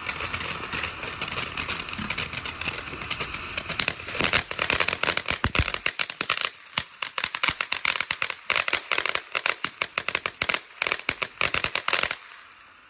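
Consumer ground firework crackling densely with rapid pops, over a hiss for the first half, then crackling alone until it stops about a second before the end.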